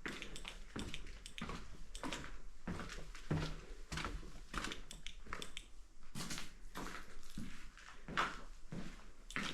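Footsteps at a steady walking pace, a little under two a second, each a short scuffing knock.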